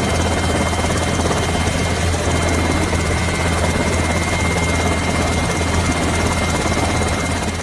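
Helicopter running steadily: a loud, even engine and rotor noise with a deep hum and a thin high whine, fading out near the end.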